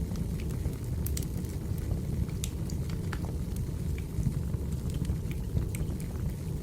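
Wood fire burning, with a steady low rumble and scattered sharp crackles and pops from the burning logs.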